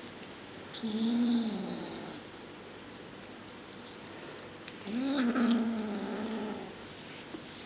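A kitten growling twice, guarding a piece of shrimp: a short low growl about a second in, then a longer one of about two seconds starting near five seconds in.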